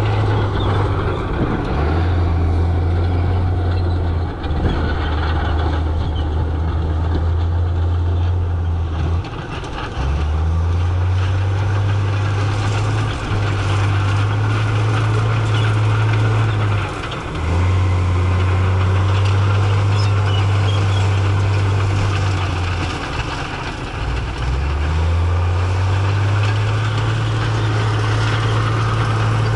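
Heavy earthmoving machine's diesel engine working, its low steady note dropping briefly and climbing back up several times as the revs change.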